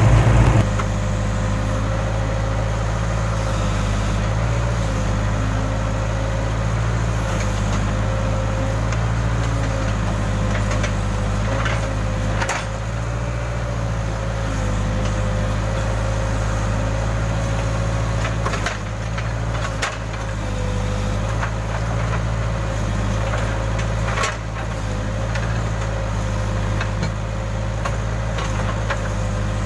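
Case backhoe loader's diesel engine running steadily under work, with a slightly wavering whine over it. A handful of sharp cracks and knocks break through as the machine digs.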